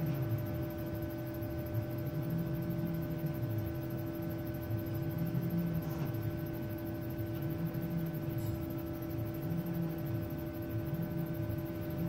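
Hyrel Hydra 3D printer humming steadily while its SDS-30 syringe head dispenses silicone. Several steady tones are heard, with a lower sound underneath that swells and fades about every two seconds.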